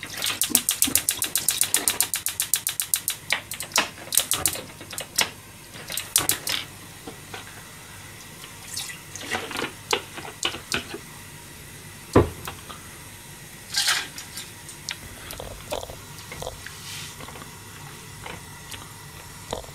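Liquid poured from a carton into a stainless steel pot, glugging rapidly for about three seconds, then a few shorter spurts and drips. Scattered light clicks follow, with one sharp knock about twelve seconds in.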